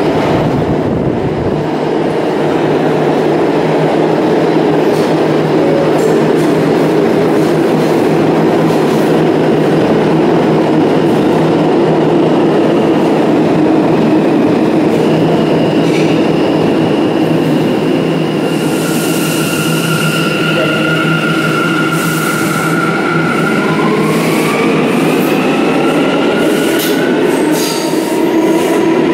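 New York City subway train at a station platform: a continuous loud rumble while it stands, then it pulls out. A steady high whine comes in about halfway, and near the end several whines rise in pitch as the train gathers speed.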